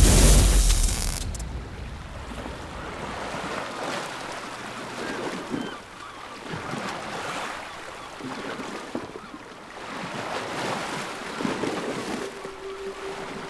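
A sudden loud burst of fire that fades over a second or so, then sea waves washing over rocks, swelling every few seconds. A steady low tone comes in near the end.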